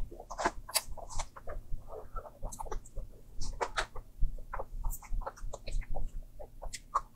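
Close-miked eating sounds: a flat wooden spoon scraping and scooping a pink-glazed ice cream cake, mixed with wet mouth smacks and chewing, in a quick irregular run of small clicks and crackles.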